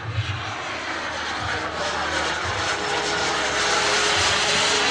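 Gas-turbine engine of a radio-controlled scale Hawker Hunter jet model flying past, a steady jet rush that grows louder toward the end.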